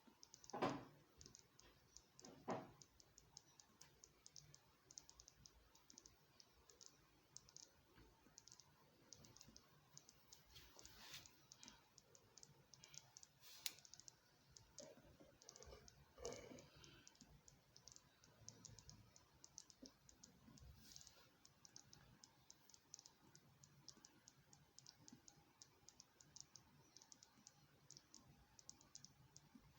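Faint, rapid, irregular clicking and crackling throughout, with two soft knocks in the first three seconds.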